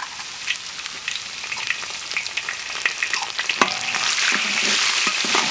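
Chili bean paste (doubanjiang) sizzling in hot oil with ginger, garlic and Sichuan peppercorns in a large iron wok, while a metal spatula scrapes and clinks against the wok. The sizzle gets louder about four seconds in.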